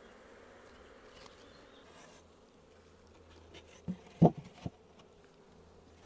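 Honeybees buzzing around an open nucleus hive, a faint steady hum. About four seconds in come three or four short knocks as the queen-cell frame and lid go back on the hive.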